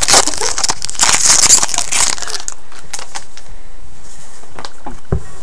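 Trading card pack wrapper crinkling and cards being handled for the first couple of seconds, then quieter with a few light card clicks and a soft thump near the end.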